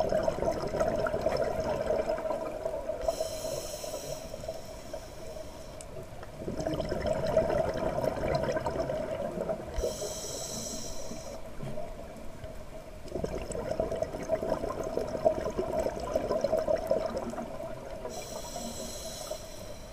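Scuba diver breathing through a regulator underwater: three long rushes of exhaled bubbles, each followed by a short hissing inhale, about every eight seconds.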